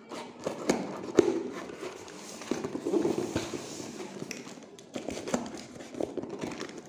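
A cardboard box being pried and pulled open along a cut slit in its top: scraping and rustling of cardboard with irregular knocks and taps as hands grip and tug at it.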